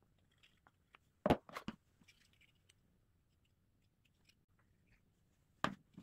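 Handling noises from gluing a thin metal plate into a small plywood hand-planer body: a quick run of about three sharp knocks a second in and another knock near the end, with faint scratching from a glue brush and small clicks between.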